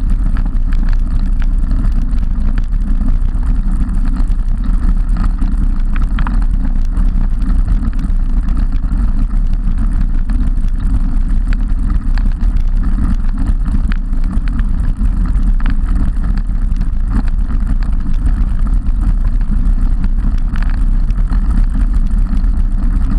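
Wind buffeting the microphone of an action camera mounted on a road bike at riding speed, mixed with tyre and road noise: a loud, steady low rumble.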